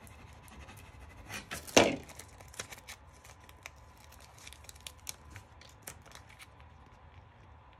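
A vinyl decal on transfer tape being peeled from its backing sheet by hand: a short crackling rip about two seconds in, then scattered small crackles and ticks as the sheet is handled.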